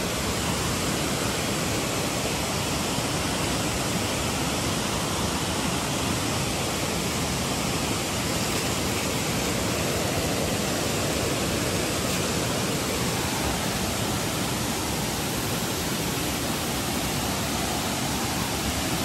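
Steady, even rushing noise with no pitch or rhythm.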